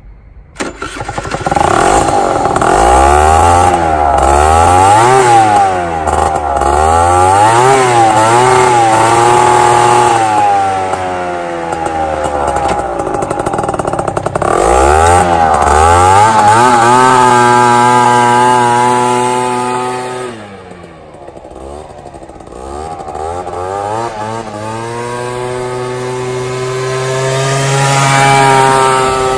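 Two-stroke scooter engine with a plastic funnel fitted over the exhaust outlet, revved up and down in quick repeated blips on the stand, then held at higher revs. Near the end it is ridden past, its steady note growing louder as it approaches.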